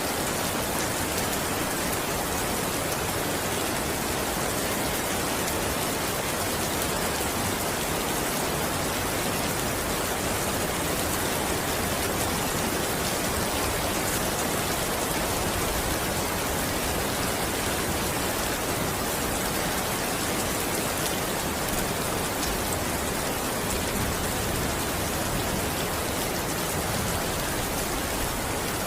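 Rain falling steadily, an even hiss with faint scattered drop ticks.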